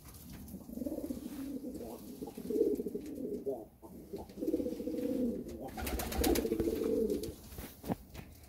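Domestic pigeons cooing in the loft: several low, rolling coo phrases one after another, with short breaks between them.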